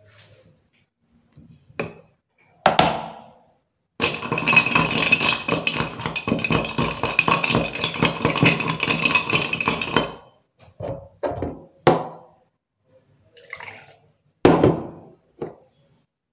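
A metal straw stirring ice cubes in a drinking glass: after a couple of knocks, about six seconds of fast, continuous rattling and clinking of ice and metal against the glass, with a ringing tone over it, then a few separate clinks and a knock near the end.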